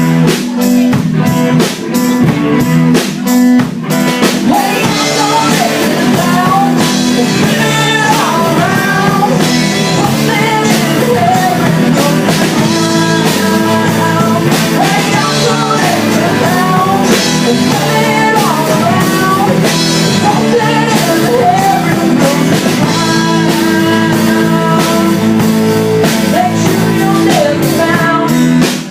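Rock band playing live with drum kit and guitar, and a wavering lead melody over them from about four seconds in.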